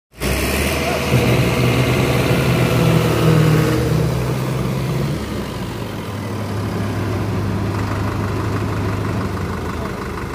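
Diesel engines of two 60 HP tractors, a Farmtrac 6055 PowerMaxx and a Sonalika DI 60, running while chained together in a tug-of-war. The sound comes in suddenly just after the start. It is loudest with a shifting engine note for the first few seconds, then settles to a steadier, slightly quieter note.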